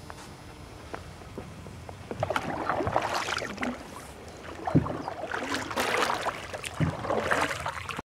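Wooden canoe paddle working the water of a lake: repeated splashes and drips of the strokes, which start about two seconds in over a faint steady background. The sound cuts off suddenly near the end.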